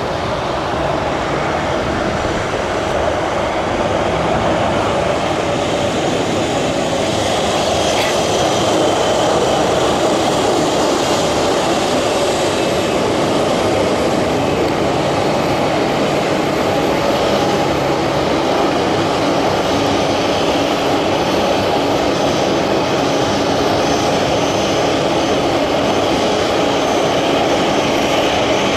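Boeing 737-800's CFM56-7B turbofan engines running at taxi power as the jet taxis in and turns. A steady rush with a thin high whine, growing a little louder over the first few seconds and then holding steady.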